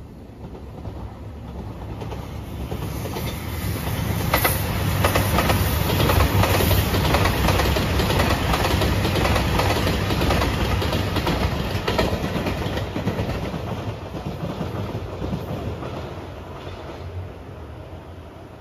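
JR Shikoku 2700 series diesel limited express train passing at speed: its rumble of engines and wheels grows over a few seconds, holds loud with wheels clacking over rail joints, then fades away.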